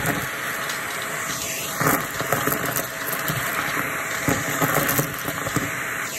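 Shark vacuum cleaner running with a steady rushing suction, crackling and rattling as it sucks up crunchy debris.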